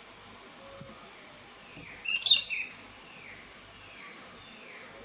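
Birds calling in a garden: one loud, sharp, high call about two seconds in, lasting about half a second, over a faint series of repeated falling chirps.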